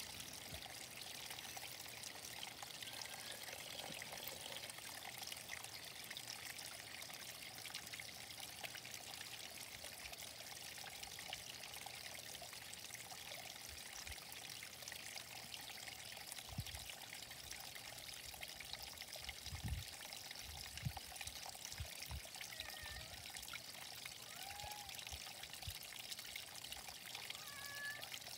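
Steady trickle of water pouring into a small garden fish pond, with a few low thumps about two-thirds of the way through and faint short chirps near the end.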